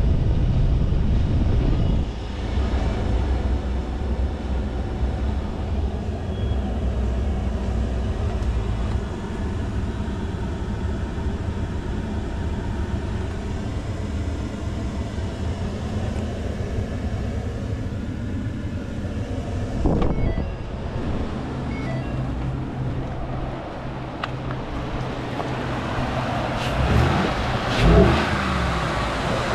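2017 Ford F-150 pickup's engine idling steadily, with a knock about two-thirds of the way through and a few more knocks near the end.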